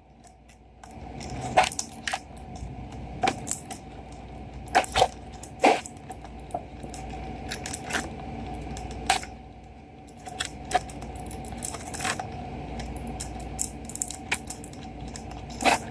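Small plastic toy figures clicking and tapping as they are pried out of their plastic packaging and set down: scattered sharp clicks about every second or two, over a faint steady hum.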